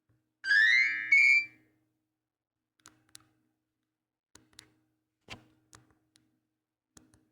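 Nokia 8210 4G phone speaker playing a short rising electronic tone, just over a second long and in two parts. It is followed by faint short clicks, mostly in pairs, every second or so.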